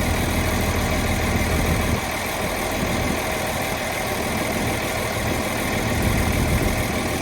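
Diesel engine of a Volvo ECR305CL hydraulic excavator running steadily. Its deep low rumble eases about two seconds in and swells again briefly near the end.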